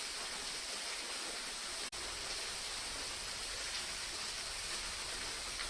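Waterfall rushing steadily, an even watery hiss with a faint low rumble. It breaks off for an instant about two seconds in.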